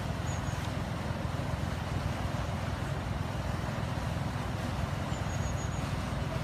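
Steady rush of water pouring into a canal lock through its opened paddles as the lock fills, with a low rumble underneath.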